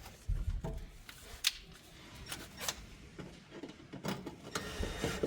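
Scattered light clicks and taps of hands working on a car door while an aftermarket speaker is fitted in it, about half a dozen separate knocks.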